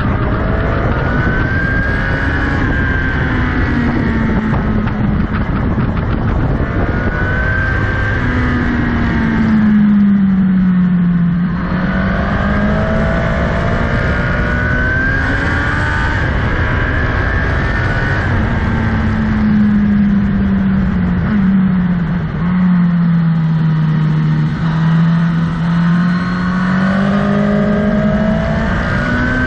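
Motorcycle engine running while riding, its pitch falling and climbing again with throttle and speed through the bends, over a steady rush of wind noise.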